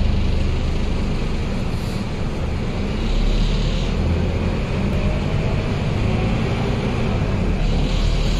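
Scania K230UB city bus's five-cylinder diesel engine running as the bus drives, heard from inside the passenger cabin as a steady low rumble with road hiss over it.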